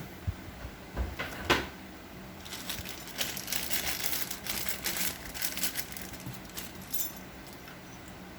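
Small plastic packaging being handled: a few knocks of hard parts in the first couple of seconds, then a few seconds of plastic bag crinkling as spare keyboard switches and pullers are unpacked.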